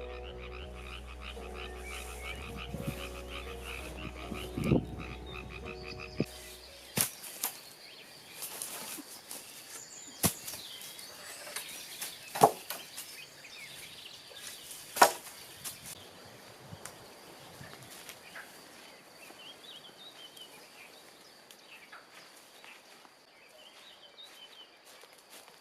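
Frogs croaking in rapid trains of short calls. Background music plays under them for about the first seven seconds, then stops. Several sharp knocks follow, the loudest two near the middle.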